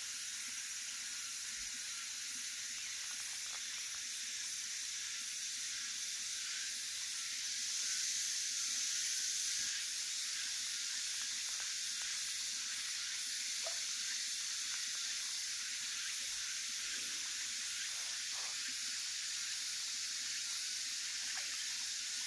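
Steady high-pitched outdoor hiss, with a few faint soft ticks now and then.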